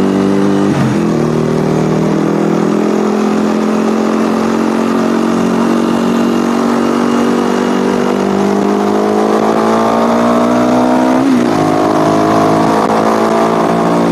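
KTM motorcycle engine pulling under acceleration, its pitch climbing steadily. There is a gear change about a second in and another near eleven seconds in.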